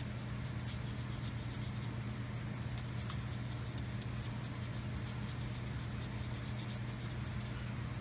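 Paintbrush scrubbing acrylic paint onto paper in many short strokes, over a steady low hum.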